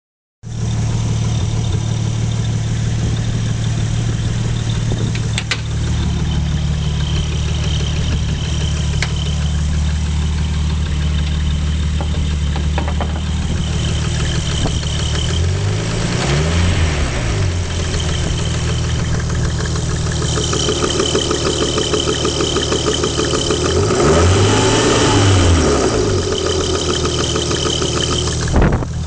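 Nissan Skyline R33's RB25DET turbocharged straight-six idling with an unexplained noise from the timing belt cover area, which the owner says goes away with higher revs. The engine is blipped briefly twice, about halfway and near the end.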